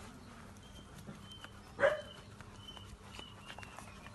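Nursing puppies, with one short, loud puppy squeal about two seconds in. Faint small clicks and a few brief high chirps sound around it.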